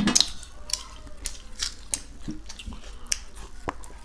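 Close-miked wet eating and drinking sounds: a louder gulp of water at the start, then chewing and lip smacks as scattered sharp clicks, a few a second.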